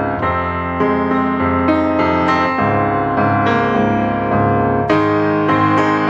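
Background piano music: a gentle keyboard melody with notes changing about every half second.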